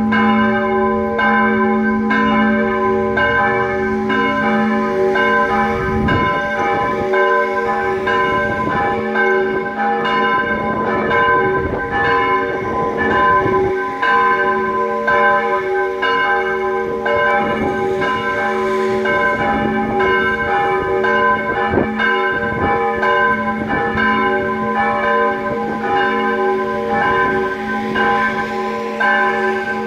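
Church bells ringing in full swing, with several bells striking in a steady overlapping stream about twice a second and their tones hanging on between strikes.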